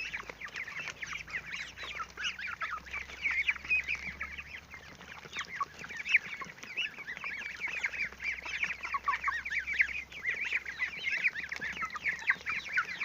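A flock of young poultry (three-week-old broiler chicks, goslings and ducklings) peeping constantly while feeding on scattered wheat: many short, high, overlapping peeps.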